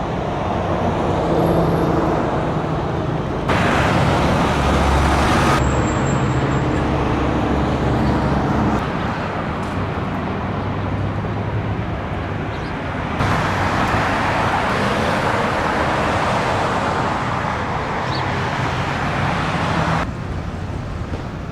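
Road traffic noise: cars and other motor vehicles passing, with a steady engine drone underneath for a few seconds. The sound shifts abruptly several times.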